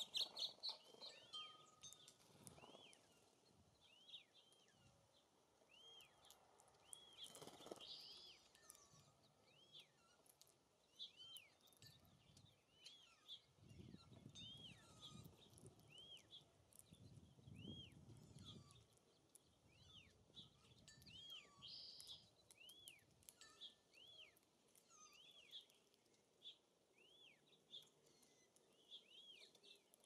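Small songbirds chirping faintly and repeatedly, short arched chirps coming about once or twice a second. There are scattered soft clicks, and a low rumble in the middle.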